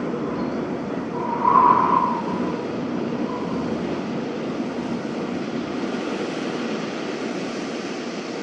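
Winter wind blowing steadily, with a brief high whistle that swells and fades about a second and a half in.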